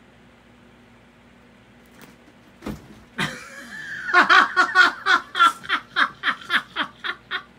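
A person laughing hard in a long run of quick bursts, about four a second, starting about four seconds in. Just before it come a couple of short thumps.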